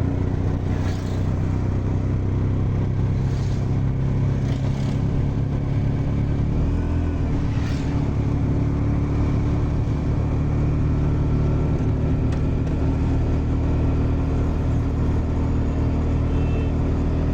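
Steady low engine and road rumble heard from aboard a moving road vehicle, with a few faint, brief higher whooshes in the first half.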